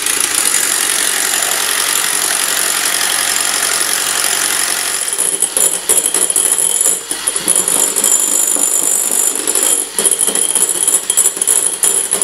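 Electric hand mixer running at speed, its beaters whipping egg whites in a glass bowl into stiff foam. The motor gives a steady high whine, and from about halfway the sound turns uneven and rattly as the whites thicken.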